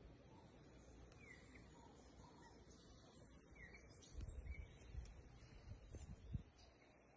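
Near silence with a few faint, short falling bird chirps. A low rumble on the microphone comes in the second half and ends in a soft thump.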